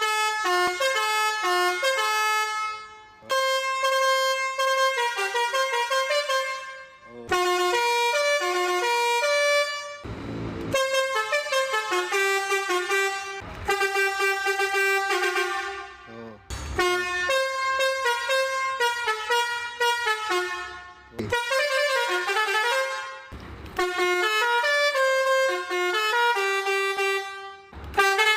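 Basuri telolet horn, a multi-trumpet musical air horn, playing a string of short stepping melodies. The phrases come a few seconds apart, with brief bursts of hiss in some of the gaps.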